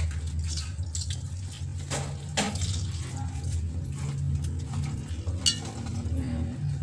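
A lemon squeezed by a gloved hand over raw chicken in a stainless steel bowl: scattered light clicks and knocks, with one sharp metallic clink about five and a half seconds in. A steady low hum runs underneath.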